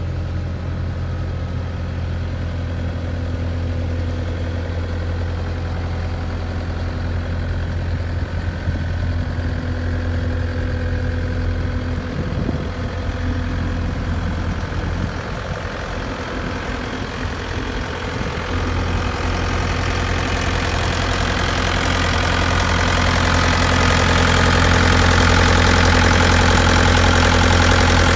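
Bobcat A300 skid steer's Kubota turbo diesel idling steadily, a low even hum. It grows louder and brighter during the last third without changing pitch.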